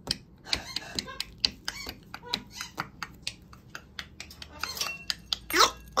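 Macaws on a rope-and-net perch making sharp, irregular clicks and taps, a few a second. A short, loud call with rising and falling pitch comes near the end.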